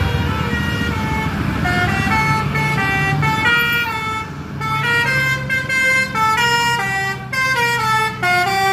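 Telolet horn, a multi-note musical air horn, playing a fast tune of stepped notes, with a brief dip about four seconds in. A vehicle engine runs underneath.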